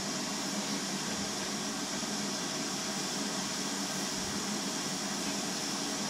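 GWR 52xx 2-8-0 tank locomotive standing at the platform, giving off a steady hiss of steam with a low hum beneath it, with no exhaust beats.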